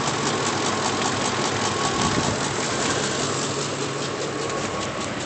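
Ford 5.4 V8 engine of a 2004 F-150 idling with a misfire, running rough and steady with a fast ticking over a low hum.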